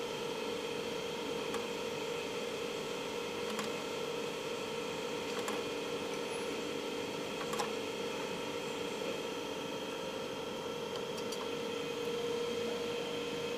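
Manual cold welding press being worked by hand lever, its die and linkage giving faint clicks about every two seconds as the copper rod ends are squeezed together. Under it runs a steady machine hum.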